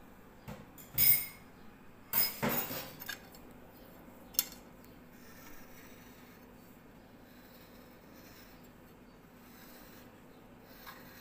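Tableware handling: a few sharp clinks and scrapes, like a spoon against a glass bowl and china plate, in the first few seconds, the loudest about a second in. After that only faint room noise.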